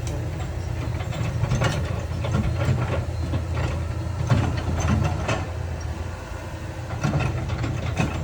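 Heavy diesel earthmoving machinery running steadily, with irregular clanks and scrapes of rock and steel over the low engine hum.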